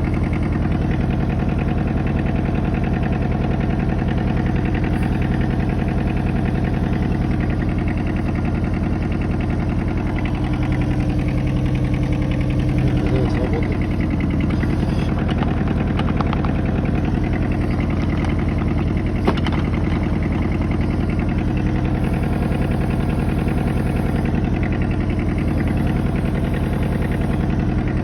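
Kobelco SK09 mini excavator's diesel engine running steadily, with a single sharp click about two-thirds of the way through.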